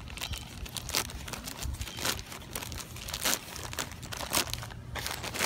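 A white plastic poly mailer bag being torn open by hand and crumpled, giving irregular crinkling and tearing crackles.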